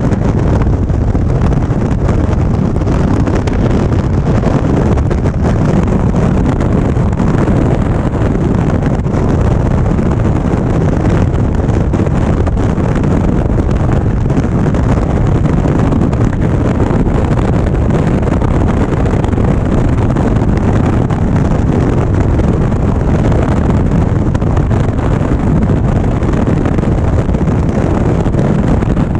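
Riding noise of an Indian Springfield motorcycle at steady road speed: wind rushing over the microphone over a low, even rumble of road and engine, unchanging throughout.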